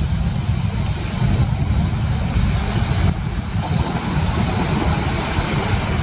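Wind buffeting the microphone in a low, uneven rumble, over the steady hiss of ocean surf that swells a little past the middle.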